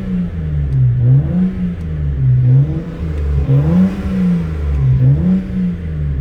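BMW 335i's turbocharged 3.0-litre straight-six revved in four short blips, the engine note rising and falling each time. The owner is chasing a faint strange noise under revs that he suspects comes from the turbos, with no blow-off valve sound to be heard.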